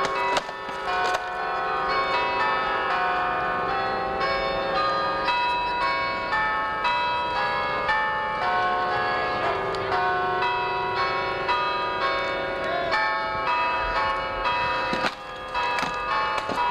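Church bells pealing loudly, many bells struck one after another so that their ringing overlaps continuously. A few sharp knocks come through near the start and about fifteen seconds in.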